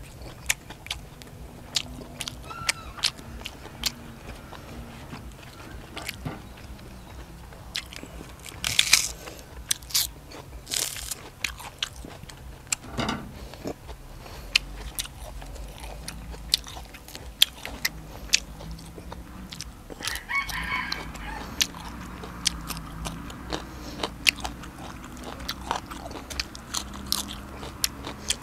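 A person chewing crunchy food close to the microphone: mouthfuls of papaya salad and raw vegetables, with many sharp crunches and a few louder bursts about a third of the way in.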